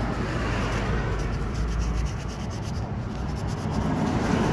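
A cloth rag scrubbing over greasy car-engine surfaces, a steady rubbing, wiping off grime loosened with WD-40, with a low rumble underneath.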